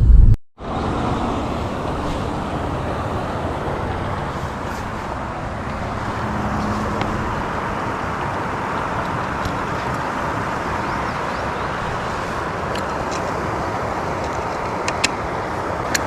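Steady rushing of river water, an even hiss-like noise that starts just after a cut near the beginning, with a few faint clicks near the end.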